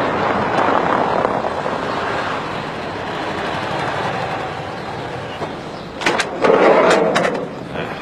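Volkswagen T3 van driving up and coming to a stop, its engine and tyres a steady noise. From about six seconds in come sharp clicks and a loud rattling slide as its side door is opened.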